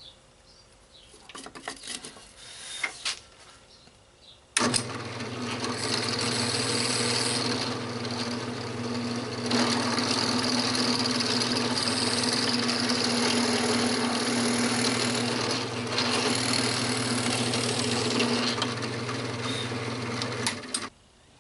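A few small handling clicks, then about four and a half seconds in an electric drill starts and runs steadily, boring through plywood to finish a hole, its sound easing and rising slightly as the bit cuts; it cuts off abruptly shortly before the end.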